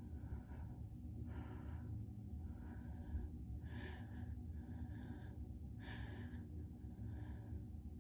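Heavy breathing close to the microphone: short audible breaths in and out, about one a second, over a low steady room hum.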